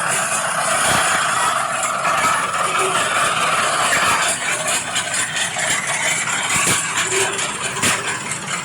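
Radio-controlled scale-model construction machine running: a steady motor and gear whine with a few short clicks.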